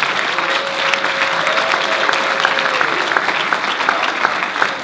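Theatre audience and cast applauding, a dense steady clapping.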